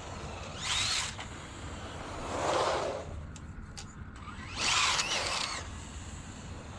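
Traxxas Rustler VXL RC stadium truck's brushless electric motor whining in three bursts of acceleration, with tyre noise on asphalt: a high whine that rises about a second in, a lower rush near the middle, and a wavering whine about five seconds in.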